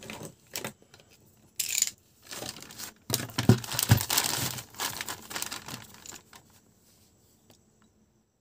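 Clear polythene bag crinkling and rustling in stretches as it is handled and slit open with a cutter knife, loudest in the middle.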